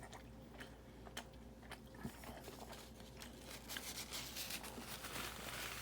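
Faint chewing of a mouthful of ground-beef burrito, with small wet clicks of the mouth.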